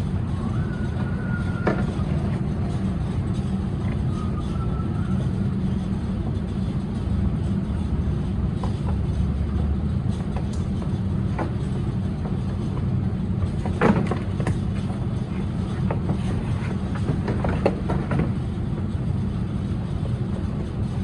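Steady low background rumble, with a few sharp clicks and knocks from plastic bumper parts and connectors being handled.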